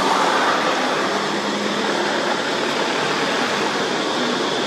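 A steady, even hiss of background noise with no distinct events.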